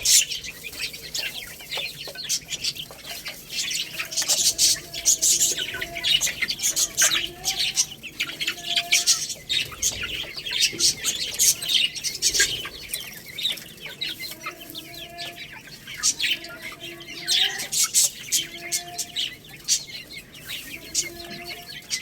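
Young chickens chirping with dense, rapid high peeps throughout, mixed with short, low clucks that come every second or so.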